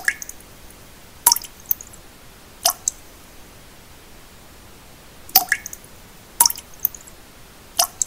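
Water droplets plinking into still water, about six sharp drips with short pitched blips at uneven intervals, over a steady even pink-noise hiss.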